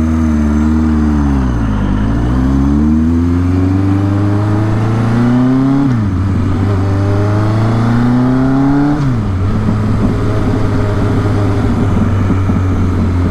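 1983 Suzuki GS 1100E's air-cooled inline-four engine pulling under way. The pitch climbs twice and falls sharply at upshifts about six and nine seconds in, then holds steady.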